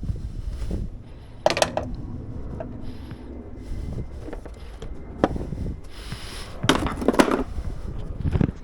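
Handling noise as parts and tools are worked by hand: a sharp click at the start, a knock about a second and a half in, and a cluster of clattering about seven seconds in, with rubbing and low rumbling in between.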